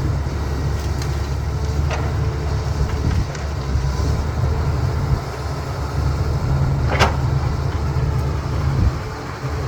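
CAT 320B excavator's diesel engine running with a steady low rumble. Two sharp clanks cut through it, one about two seconds in and a louder one about seven seconds in.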